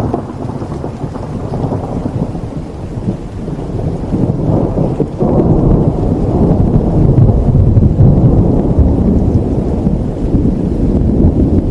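Thunder rolling and rumbling long and deep over steady rain, swelling louder a few seconds in.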